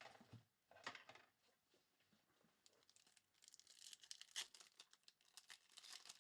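Faint rustling and crinkling of trading-card pack wrappers and cards being handled, with a flurry of quick scratchy crackles in the second half.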